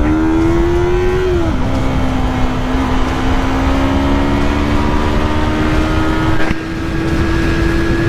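2019 Yamaha R3's parallel-twin engine under way, heard from the rider's seat over wind rush. The engine pitch drops sharply about a second and a half in, as on a gear change, then climbs slowly and steadily.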